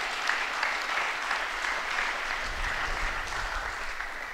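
Audience in a hall applauding: a dense patter of hand claps that thins slightly near the end.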